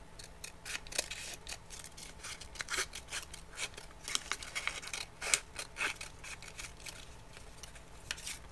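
Scissors snipping through paper strips, cutting down their centre: an irregular run of many short cuts.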